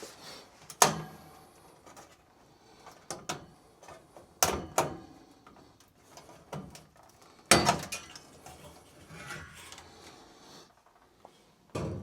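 Hands working on a gas furnace: a loud knock about a second in, two quick knocks near the middle and another loud one later, with quieter clicks and rustling between.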